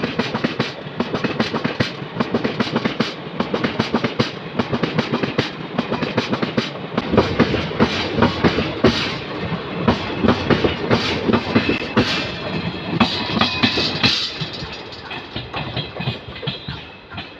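ICF passenger coaches passing at speed, their wheels clattering over the rail joints in a fast, steady rhythm. The sound fades near the end as the last coach draws away.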